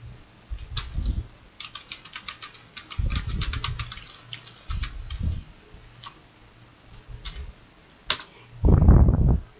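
Computer keyboard keys clicking in quick runs as a search term is typed, then a sharper single key press about eight seconds in. Dull low thumps come in between, the loudest near the end.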